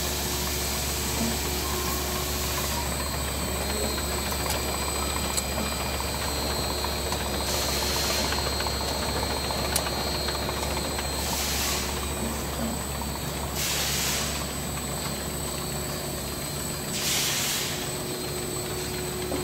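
Filler-capper machinery running with a steady low hum and a few steady whining tones. Four short hisses of compressed air come a few seconds apart, starting about eight seconds in.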